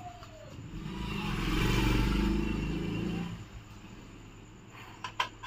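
A road vehicle's engine passing by, swelling up over about a second and a half and fading away again. A few short clicks come near the end.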